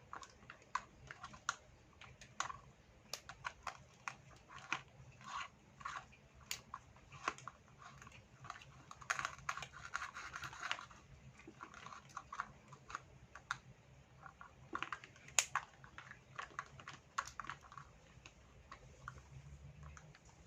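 Plastic toy pieces clicking and clattering as they are handled, irregular light taps with a denser rustling scrape about halfway through.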